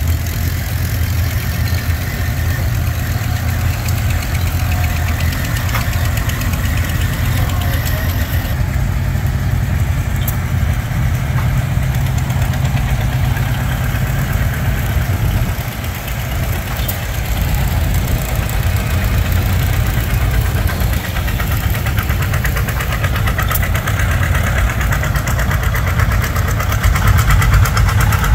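Antique farm tractor engines running as the tractors drive past one after another, getting louder near the end as a John Deere passes close by.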